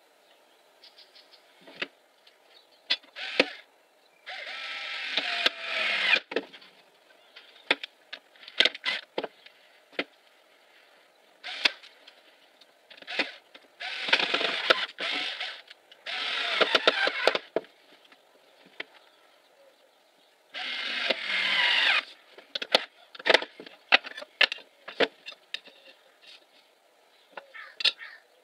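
Hand work with small wooden strips and a metal straightedge on a wooden workbench: scattered clicks and knocks as the parts are set down and shifted, with four rasping scrapes of one to two seconds each.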